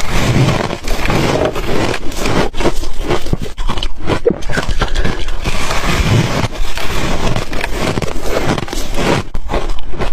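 Freezer frost crunching close to the microphone: a loud, dense, continuous crackle of many small, sharp crunches.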